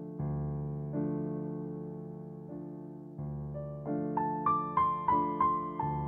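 Background piano music: slow chords that ring and fade, then a short run of higher melody notes in the last two seconds.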